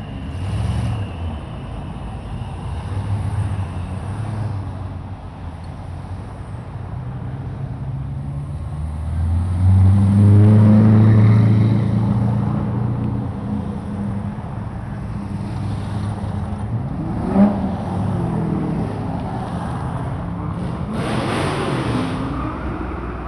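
A slow procession of Chevrolet Corvettes driving past, their V8 engines running with a low steady note. One car passes close and loud about ten seconds in, and there is a short sharp blip of engine noise a little past halfway.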